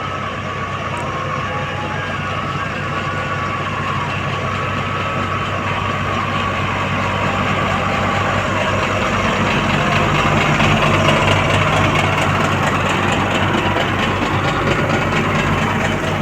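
Heavy engine of road-building machinery running steadily, growing gradually louder and peaking about two-thirds of the way through.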